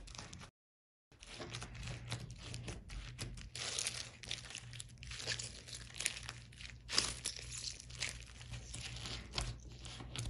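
Clear slime full of chopped plastic drinking-straw pieces being squeezed and kneaded by hand: a dense, irregular run of faint crackles and crunches as the straw bits pop and rub inside the slime, broken by a short silent gap about half a second in.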